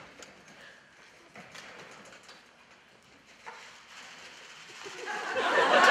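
A few light taps and knocks of props on desks, then audience laughter swelling up about five seconds in.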